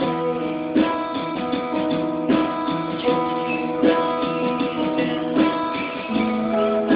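Acoustic guitar playing an instrumental piece, with strong strummed chords about every second and a half and lighter picked notes between them.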